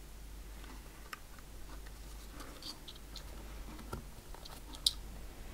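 Faint clicks and light scraping of fingers handling small model parts, pressing an LED on its wire into the shaft of a model gun, with one sharper click about five seconds in.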